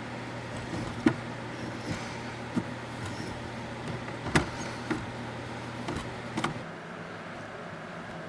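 Scattered sharp metal clicks and knocks, about seven in all, from tools at work on the brake pedal while the new pedal plate is fitted. A steady low hum runs under them and stops about six and a half seconds in.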